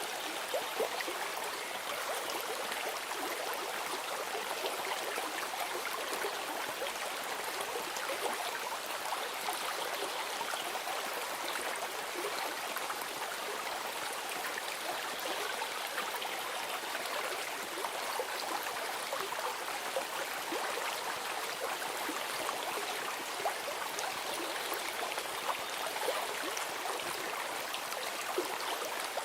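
Steady running water of a stream, babbling and trickling without a break.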